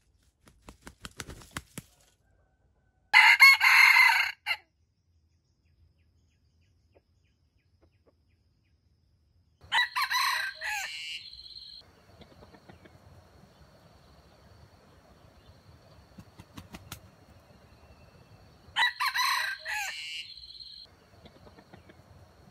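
Red junglefowl rooster crowing three times, each a short, clipped crow of about a second and a half, spaced several seconds apart. The first crow is the loudest.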